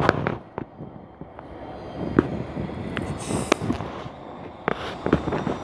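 Train coaches pulling slowly away, their wheels giving irregular sharp clicks and knocks over the rails above a low rumble, with a brief hiss about three seconds in.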